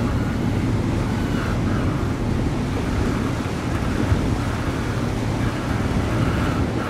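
Wind buffeting the microphone over the steady wash of the open sea, a constant noise with no clear engine note.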